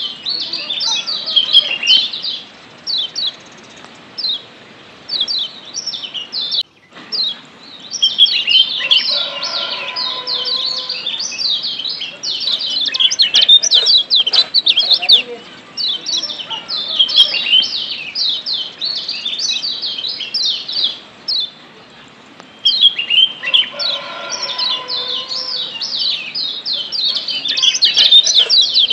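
Lombok yellow white-eyes (kecial kuning) chirping: dense runs of quick, high, sweeping 'ciak' notes that come in bursts, with thinner stretches about a third of the way in and again past two-thirds.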